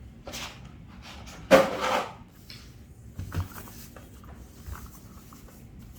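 Packaging being handled while unboxing a keyboard: two short rubbing, sliding bursts, the second the loudest, followed by a few light knocks.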